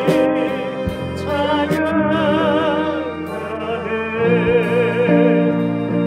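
A live worship band plays a hymn. A lead melody with wide vibrato rises and falls over sustained keyboard chords and bass, and the chords change about four seconds in.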